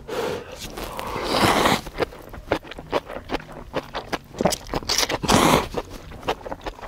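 Close-up eating of spicy beef Yukgaejang cup ramen: two long slurps of noodles, about a second in and about five seconds in, with rapid chewing and mouth clicks between them.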